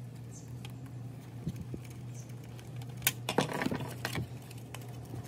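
Small clicks and rattles of plastic parts, screws and wiring being handled and a screwdriver working a screw in a singing fish's plastic housing, with the sharpest clicks a little past halfway. A low steady hum runs underneath.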